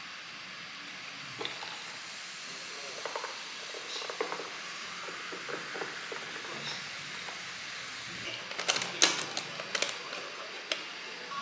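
Cola poured from a plastic bottle over ice in a glass, fizzing, with faint clinks. Near the end comes a quick series of sharp clicks as the lid of a plastic snack jar is twisted open.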